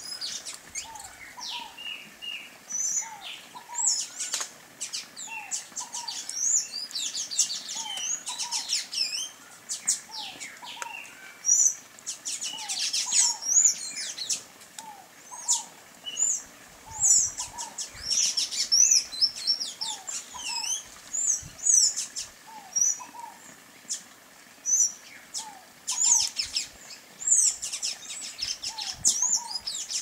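Several songbirds calling: quick high chirps and twitters that come in clusters. Under them, a lower short call repeats about once a second, with a few sharp clicks.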